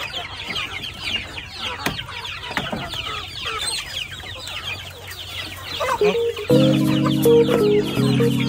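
A flock of penned chickens calling and clucking at once: a dense, overlapping chatter of short, high calls. About six and a half seconds in, background music with held chords comes in, louder than the birds.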